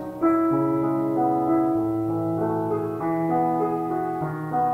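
Slow piano music: sustained chords, with new notes struck every second or so.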